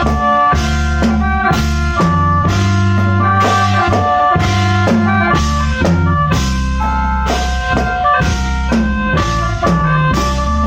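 Khaen band music: the free-reed bamboo mouth organ playing sustained, droning chords and melody over a drum kit keeping a steady beat, with a heavy bass underneath.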